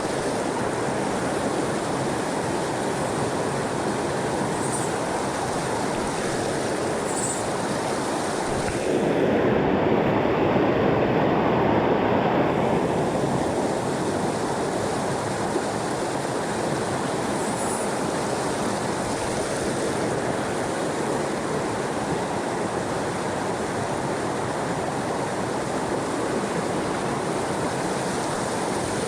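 Mountain creek running high, a steady rushing of water. About a third of the way in it swells louder and duller for a few seconds, then settles back.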